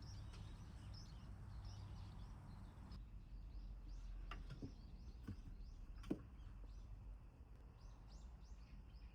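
Small birds chirping faintly and repeatedly in the background, with a few soft knocks or taps in the middle, the loudest about six seconds in.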